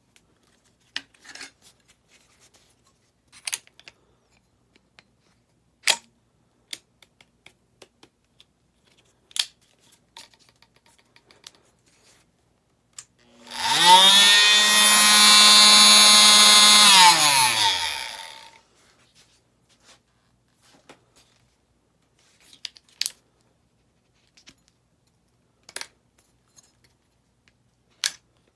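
ENERTWIST ET-OM-500 corded oscillating multitool switched on: the motor spins up, runs steadily for about four seconds, then winds down. Sharp clicks and knocks of the tool being handled come before and after.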